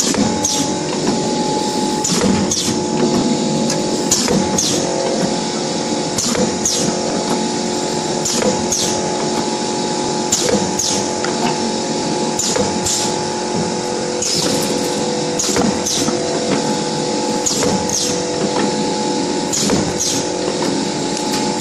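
YX400 wire-cut cookie depositing machine running as it lays out dough pieces: a steady mechanical hum with a couple of held tones, and short, sharp high-pitched strokes repeating every second or so, often in quick pairs.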